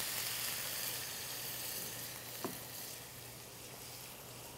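Shrimp sizzling in olive oil and butter in a stainless steel sauté pan, just after a splash of white wine has gone in; the sizzle is strongest at first and dies down gradually. One light tap about halfway through.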